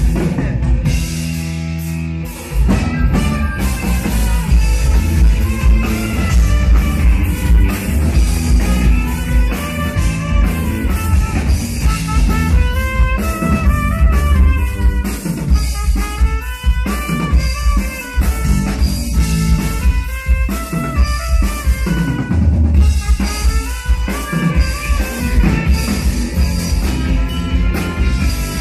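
Live band playing: a trumpet carrying the melody over drum kit and keyboard. The first couple of seconds are a held chord, then the drum beat comes back in.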